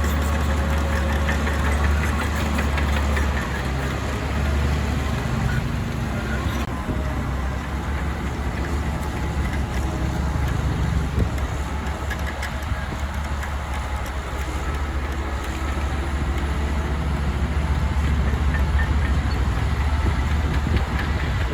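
Heavy diesel engine of earthmoving machinery running steadily at low revs.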